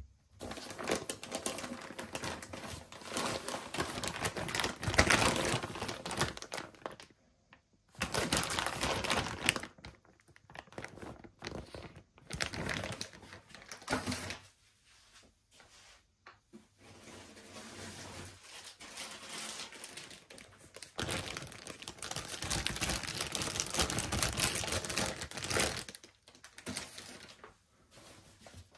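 Handling noise from a fabric carry bag and plastic-wrapped CPAP tubing being moved about, rustling and crinkling. It comes in several bursts of a few seconds each, with short pauses between them.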